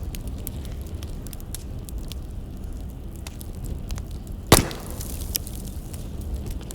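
Firewood burning with scattered sharp crackles over a low steady rumble, and one loud pop about four and a half seconds in.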